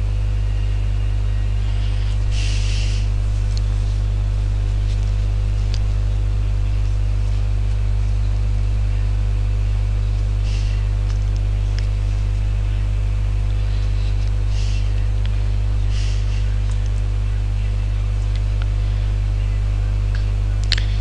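Steady electrical mains hum: a low buzz with a ladder of overtones, unchanging throughout, with a few faint brief hissy noises over it.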